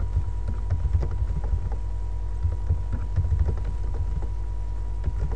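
Computer keyboard typing: quick, irregular key clicks over a steady low electrical hum and a thin steady tone.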